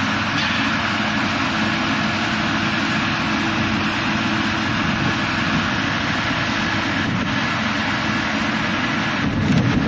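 Steady engine running, mixed with wind noise on the microphone.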